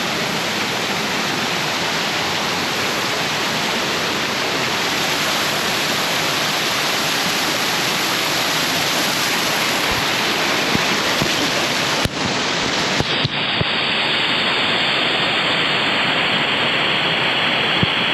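Waterfall rushing close by, a loud steady roar of falling water. A few brief knocks come about two-thirds of the way through, after which the sound turns slightly duller.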